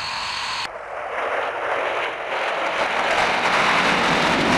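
Fighter jet engine noise, a steady rushing roar. About a second in it cuts to a louder, fuller rush that builds slightly.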